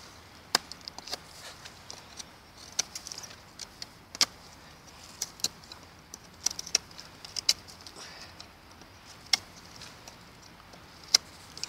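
Knife with an Elmax steel blade cutting into a wet, live branch: irregular sharp clicks and cracks as the blade bites into the wood, over a faint scraping hiss.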